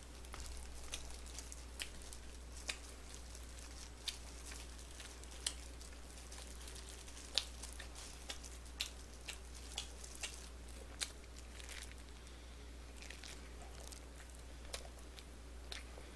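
Chewing of sweet crispy fried chicken (dakgangjeong), with scattered sharp clicks and small crinkles from a disposable plastic glove handling the food, over a low steady hum.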